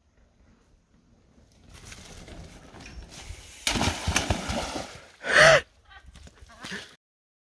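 Mountain bike going into a shallow creek and crashing over into the water: a rush of splashing with a few knocks, then a short cry with a falling pitch about five seconds in.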